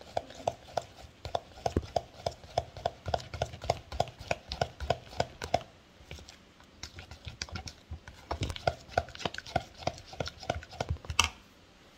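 A metal spoon stirring flour-and-milk batter in a plastic bowl, clicking against the bowl about three times a second. It pauses briefly about halfway, then carries on and stops near the end with one louder knock.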